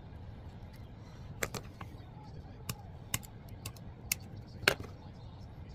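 Sharp hard-plastic clicks and snaps, about eight, spread irregularly and the loudest near the end, from a black plastic car door trim part being handled and pried apart by hand.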